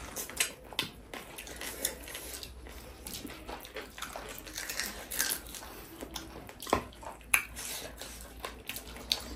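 Close-up chewing of tough, chewy water-buffalo meat: irregular wet mouth clicks and smacks, a few louder ones scattered through.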